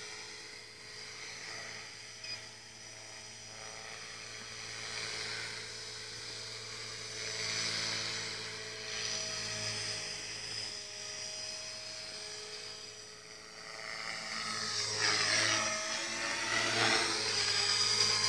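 Trex 450 clone electric RC helicopter in flight: the high whine of its motor and rotors. Near the end it grows louder, and the whine dips in pitch and sweeps back up.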